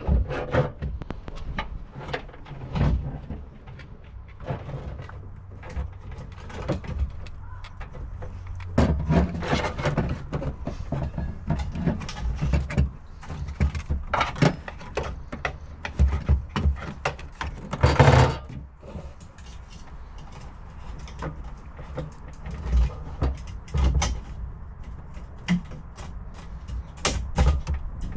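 Irregular clunks, clicks and scraping of hand work as a fuel pump assembly is fitted back into a car's fuel tank opening, with one louder scrape-like burst a little after halfway.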